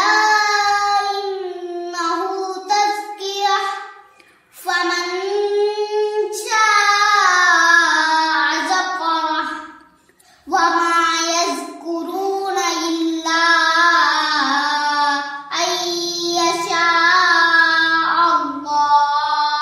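A single voice chanting Quranic recitation (qirat) in long, melodic, drawn-out phrases: four phrases with short breaks between them, about 4, 10 and 15 seconds in.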